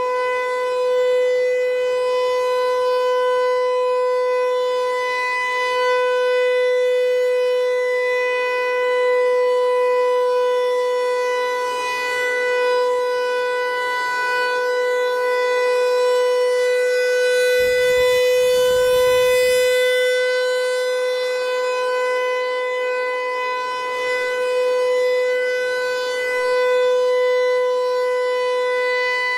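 Federal Signal Equinox electronic warning siren sounding a steady tone at one fixed pitch in a test, its loudness swelling and fading a little. A brief low rumble is heard about eighteen seconds in.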